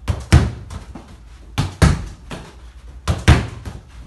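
A football being struck and rebounding in a small wooden-walled room: three pairs of sharp thuds, the two hits of each pair about a quarter second apart, repeating about every second and a half at a quick, even tempo.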